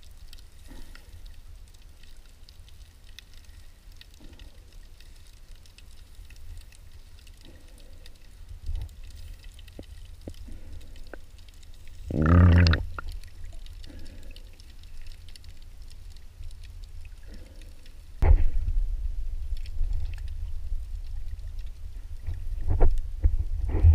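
Muffled water sloshing and gurgling heard through a submerged camera, a low rumble under faint scattered ticks. About halfway through comes one short pitched sound with many overtones, lasting under a second. About three quarters in, the sloshing turns suddenly louder, with a few sharp knocks near the end.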